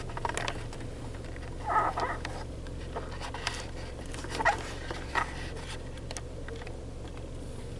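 Car engine idling, heard from inside the cabin as a steady low hum, with a few short clicks and a brief rustle over it.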